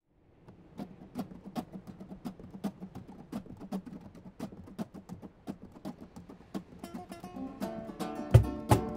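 Acoustic music starting up. A steady percussive tapping runs at about three beats a second, and near the end an acoustic guitar comes in strumming chords with heavy low accents.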